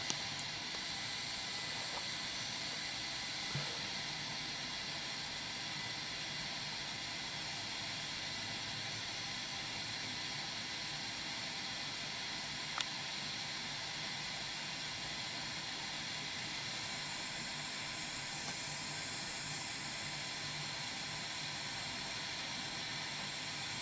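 Steady electronic hiss from a recording's background noise, with faint steady high tones in it and a small click about 13 seconds in.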